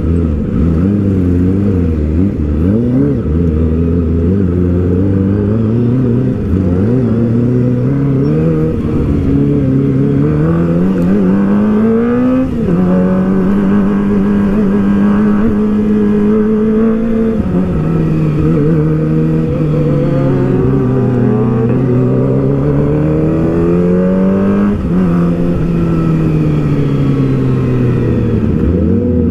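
Kawasaki ZX-6R 636's inline-four engine and exhaust heard from the rider's seat at low road speed. The revs climb and fall with the throttle, with two sudden drops in pitch, about twelve seconds in and again near twenty-five seconds.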